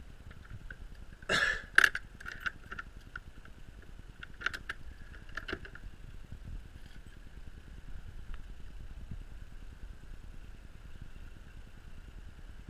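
A few sharp knocks and a short rattle from a hand on a wooden shed's double doors, loudest about a second and a half in, with a couple more knocks near five seconds; after that only a faint steady background noise.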